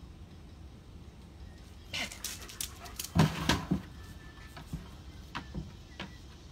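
Two German shepherds scrabbling over concrete and landing on raised dog cots: a brief scuffle about two seconds in, then a cluster of thumps and rattles from the cots about three seconds in, followed by a few lighter taps as they settle.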